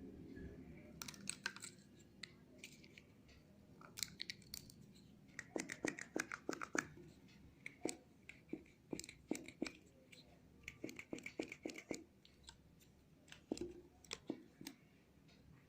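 Product packaging being opened and handled by hand: clusters of crackles, clicks and tearing noises, busiest about six seconds in and again around ten to eleven seconds.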